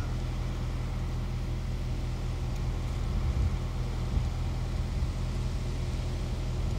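Diesel truck engine idling, a steady low drone.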